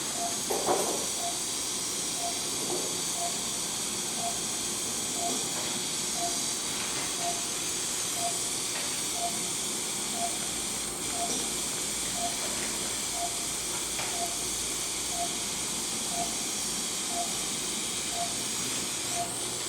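Operating-room patient monitor beeping about once a second, a short mid-pitched beep that keeps time with the patient's pulse, over a steady hiss. A brief louder noise comes less than a second in.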